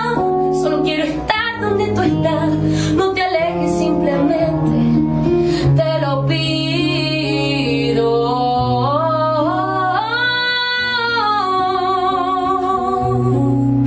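Woman singing long, drawn-out notes that slide up and down, accompanied by an acoustic guitar.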